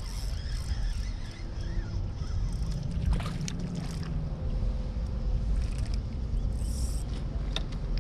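Water sloshing and splashing beside a kayak as a small fish is reeled to the surface, with a few sharp clicks around the middle and near the end over a steady low rumble.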